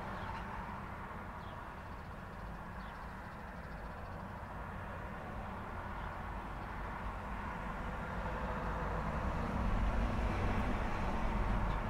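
Road traffic at an intersection: a steady hum of passing cars, with a vehicle's low engine rumble growing louder in the second half.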